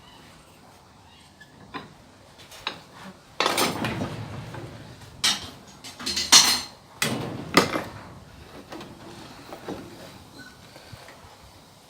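Irregular metallic clanks and clatter of steel being handled and knocked together, about seven hits with short ringing tails, loudest about a third and halfway in.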